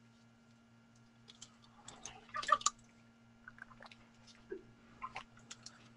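Faint scattered clicks and small noises over a low steady electrical hum. The loudest is a short cluster about two and a half seconds in.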